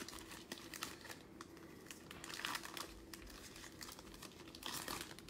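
Faint crinkling of a trading-card pack's wrapper handled and worked open by hand: scattered small crackles, with fuller rustles about two and a half seconds in and near the end.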